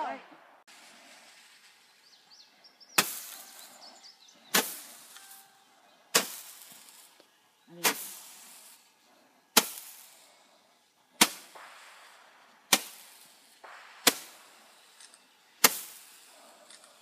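A hand-held Roman candle firing, a sharp pop about every second and a half, nine shots in all, each trailing off briefly as the ball flies.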